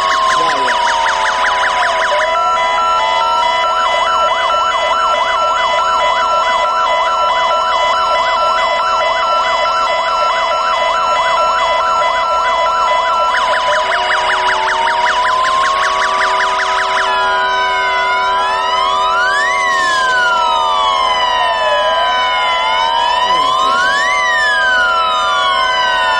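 Several fire engine sirens sounding together and overlapping. Fast yelping warbles run through the first part, then give way about two-thirds of the way in to slow rising-and-falling wails at different pitches, crossing each other.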